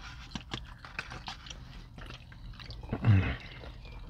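Close-miked chewing and lip-smacking of someone eating takeout food, with many small wet clicks. About three seconds in there is a short, louder, low hum that falls in pitch.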